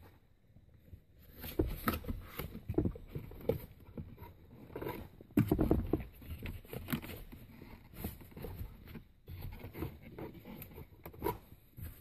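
Hands working a rubber shifter dust boot down around the shifter and over the lip of the console opening: irregular rubbing, scraping and small knocks, loudest about five and a half seconds in.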